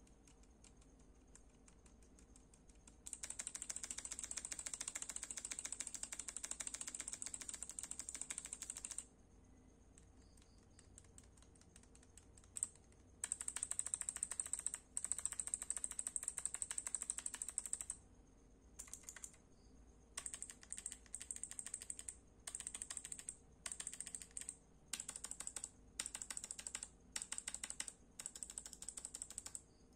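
Fast typing on a CIY GAS67 mechanical keyboard fitted with Kailh Box Jade clicky switches, each keystroke a sharp click. After a quiet start there are two long runs of rapid keystrokes with a pause between them, then a string of short bursts lasting about a second each.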